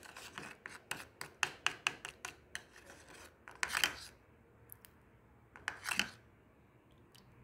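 Metal spoon stirring and scraping a raw-milk-and-salt scrub in a plastic bowl: a quick run of short scrapes and taps, then two longer scrapes about four and six seconds in.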